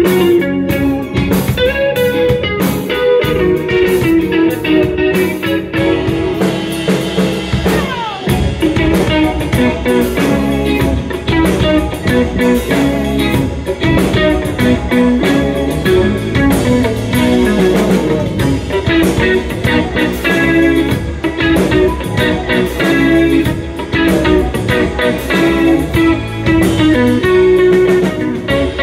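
Live instrumental band playing: an electric guitar lead over drum kit, bass guitar and percussion, with one quick falling slide in pitch about eight seconds in.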